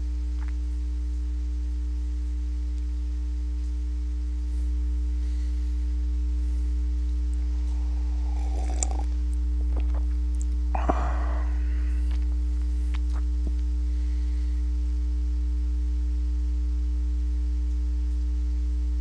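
Steady electrical mains hum with a low buzz and a few fixed higher tones on top, picked up by the recording microphone. Faint, brief noises come about halfway through.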